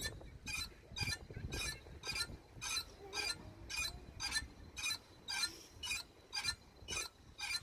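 Metal playground see-saw rocker being rocked, its pivot giving a short high-pitched clink or squeak about twice a second in a steady rhythm.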